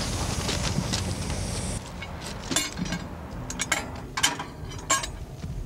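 Steady low rumble with hiss from a rail yard beside a stopped freight train. About two seconds in it stops abruptly, and a few sharp metallic clinks and knocks follow from work on the freight cars' running gear.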